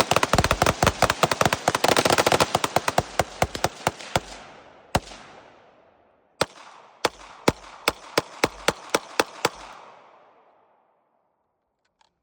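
Gunfire: a fast string of shots for about four seconds and one lone shot, then a slower string of about ten shots at roughly three a second, each string trailing off in echo.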